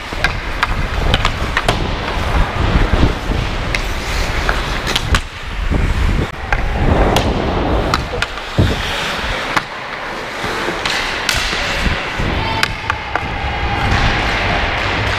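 Ice hockey skates scraping and carving across rink ice, with sharp clicks of a hockey stick blade handling a puck, under a low wind rumble on the body-worn microphone.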